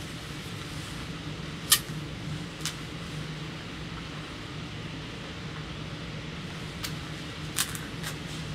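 Steady low background hum and hiss, broken by a few sharp clicks: a loud one about two seconds in and a small cluster near the end.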